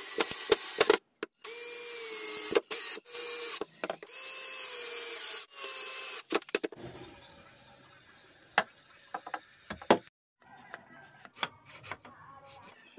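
Cordless drill/driver driving screws through small metal connector plates into wood, in several short bursts with sharp clicks between them. The motor's pitch sags as each screw pulls tight. After about six seconds the drilling stops, leaving scattered light knocks and clicks of wooden pieces being handled.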